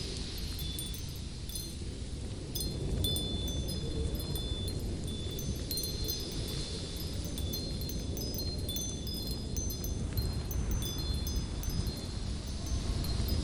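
Steady low wind rumble, with short, high ringing tones at several pitches sprinkled over it throughout.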